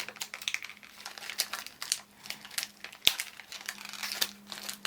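Blind-bag packaging of a mystery pin crinkling and crackling in irregular quick bursts as it is handled and pulled open by hand, with one sharp click about three seconds in.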